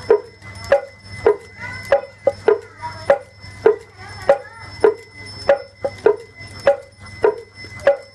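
Motor-driven Balinese kulkul, a wooden slit drum, struck by its machine at a steady beat of a little under two knocks a second, each knock ringing briefly.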